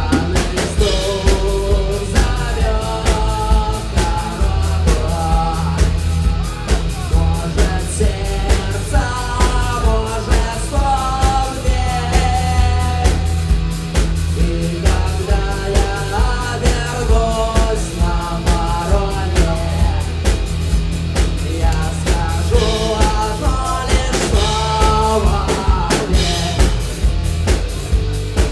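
A rock band playing live: a steady drum-kit beat and bass under a wavering melodic lead line.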